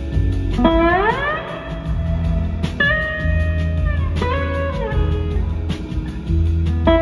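Live band music led by an electric slide guitar: a long slide up about a second in, held singing notes, then slides down a few seconds later, over bass guitar and drums.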